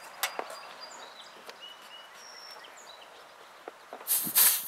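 A few light clicks as the gauge-hose fitting is worked at a mini-split outdoor unit's refrigerant service port, then, about four seconds in, a short, loud hiss of refrigerant escaping as the hose is unscrewed from the port. Birds chirp in the background.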